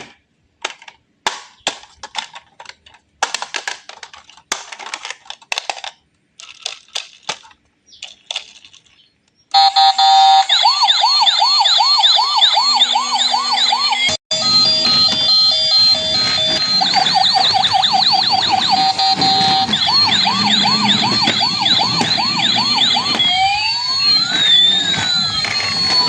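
Short, scattered clicks and knocks for the first nine seconds or so, then a battery-operated toy's electronic siren switches on loudly: a fast repeating warble over electronic beeping tones. It cuts out for an instant about halfway, and near the end it plays long crossing rising and falling sweeps.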